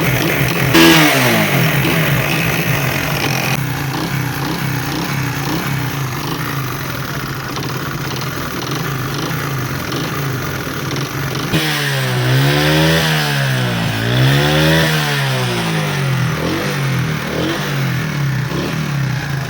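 Motorcycle engine running after a top-end repair, its tappets freshly adjusted and oil now reaching the top end. It settles from a higher rev to a steady idle about a second in, then is revved up and back down twice near the middle, with no loud knocking stated; the mechanic calls the bike perfect.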